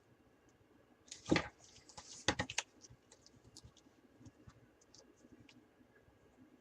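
Handling noises while working on a PC case: a short scrape about a second in, a quick cluster of sharp knocks a little after two seconds, then scattered light clicks.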